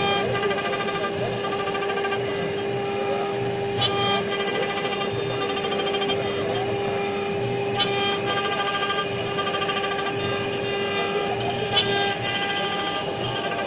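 CNC wood router running: a steady spindle whine, with the stepper motors' pitched whir changing about every four seconds as the machine moves. The low steady tone stops shortly before the end.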